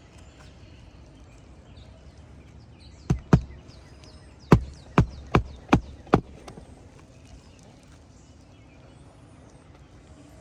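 A hammer driving a roofing nail through an asphalt shingle into the roof deck: two sharp strikes about three seconds in, then five quicker blows a second later.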